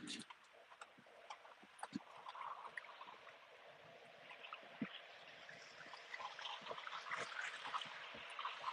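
Faint outdoor street ambience: a steady low hiss with scattered light ticks and taps, slowly growing louder near the end.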